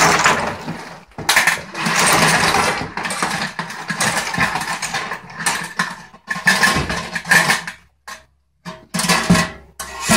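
Boil broth splashing out of an aluminum CanCooker into a foil roasting pan, then clams, corn and shrimp tumbling out, the shells clattering into the pan. The noise comes in uneven bursts, with a short break about eight seconds in.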